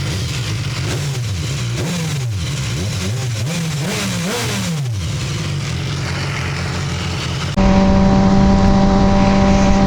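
Kawasaki ZX-6R 636 inline-four motorcycle engine revved in several quick blips, its pitch rising and falling. About three quarters of the way in it cuts abruptly to a louder, steady engine note at constant revs.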